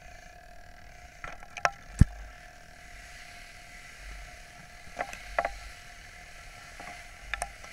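Sharp knocks and clicks in three short groups over a steady hum. The loudest knock comes about two seconds in.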